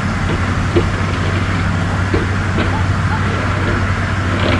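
Stage fire effect burning steadily during the nightly burn-off of the stunt set: a continuous rushing noise over a low hum, with a few light knocks.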